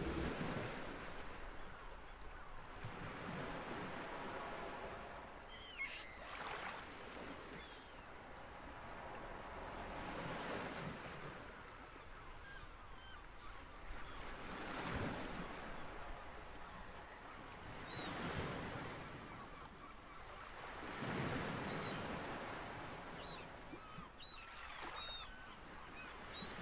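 Sea waves breaking and washing back on a shingle beach, swelling and fading about every three to four seconds, with a few faint bird calls now and then.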